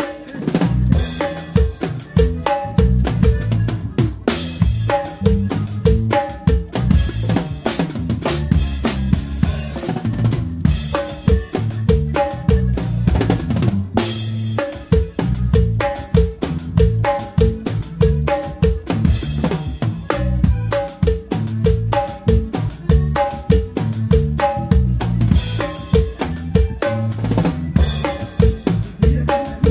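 Drum kit played live in a steady, driving groove: snare, bass drum and cymbal strokes at an even beat, with a band's bass notes and a repeating melodic figure underneath.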